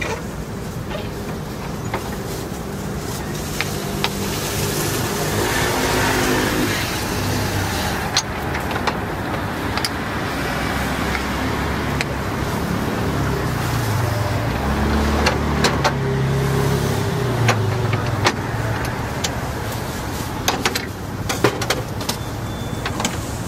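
Roadside street ambience: traffic running past, with a low engine rumble swelling around the middle. Scattered light metallic clicks and taps through the second half, from the metal molds of a gas-fired egg-bread griddle being handled.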